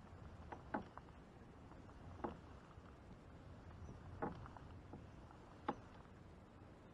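Four light knocks on a fishing kayak's hull, spaced a second or two apart, with a few fainter ticks between them.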